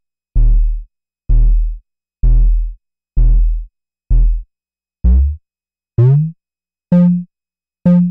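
Synthesized analog drum hits from a Eurorack patch: a Doepfer A-143-9 oscillator shaped by a DIY percussion envelope generator through a VCA. Nine hits about one a second, starting as a deep bass-drum thud and rising in pitch toward a shorter tom-like hit over the last few strokes as the knobs are turned.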